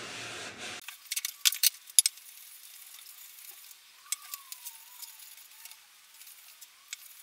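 Cloth being rubbed over the oiled wooden guitar body: a soft rustling wipe with scattered crackly ticks, busiest about a second in and fainter afterwards.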